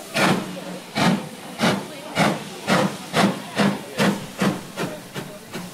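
Steam locomotive starting away: sharp exhaust chuffs from the chimney, quickening from about one a second to nearly three a second, with steam hiss between the beats, and growing fainter near the end.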